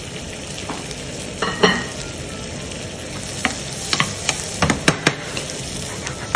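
Chicken pieces sizzling in a frying pan of butter and olive oil sauce while being stirred with a spatula: a steady frying hiss with sharp knocks and scrapes of the spatula on the pan, once about one and a half seconds in and several around four to five seconds in.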